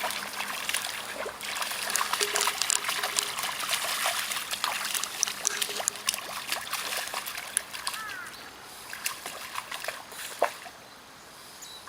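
Shallow river water splashing and trickling as golden retriever puppies run through it. The splashes are busy at first, then thin out and fade in the last few seconds.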